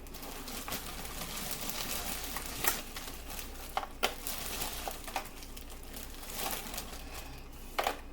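A plastic bag of mixed vegetables crinkling as the pieces are shaken out, with scattered sharp clicks and taps of the pieces landing in the baking pan.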